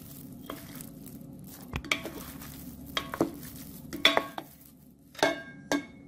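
Wooden spatula and wooden fork tossing raw fish chunks in a turmeric marinade in a mixing bowl. The utensils knock and clink against the bowl about once a second, with soft wet squishes between.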